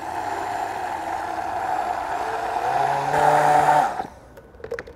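Handheld immersion blender running, emulsifying a butter-based injection mixture: a steady motor whine that shifts in pitch and gets a little louder near the end, then cuts off about four seconds in.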